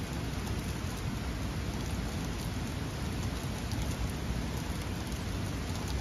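Steady rushing of a rocky forest stream and waterfall: an even, unbroken hiss of falling water.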